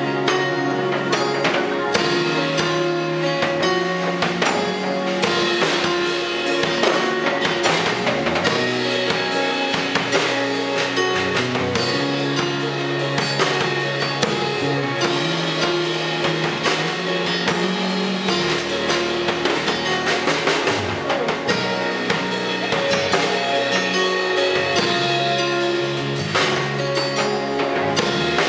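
A live band playing: a drum kit, an electric bass guitar and keyboards.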